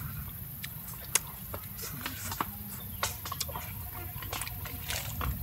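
A person chewing grilled fish with the mouth close to the microphone: irregular wet smacks and sharp clicks.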